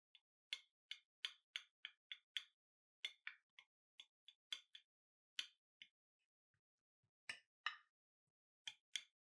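Table knife cutting down through a baked chocolate banana oat cake in a glass baking dish: a quiet run of short crisp ticks, about three a second, pausing for a second or so before a few more near the end.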